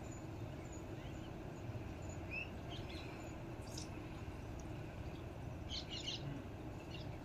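Outdoor background noise with a steady low rumble and a few short, faint bird chirps, a cluster of them about six seconds in.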